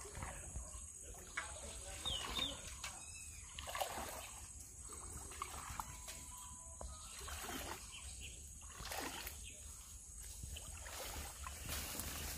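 Shallow river water sloshing and splashing in uneven bursts as a person wades knee-deep through it.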